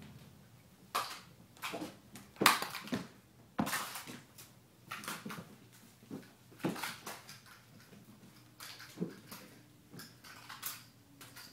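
Kittens jumping and landing on a hardwood floor: a series of irregular thumps and scuffs, some much louder than others.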